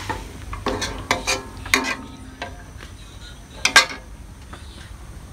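Metal ladle and aluminium pot clinking against a metal wok of broth on a gas stove. There are several separate clinks that ring briefly, with a louder double clink a little before the end.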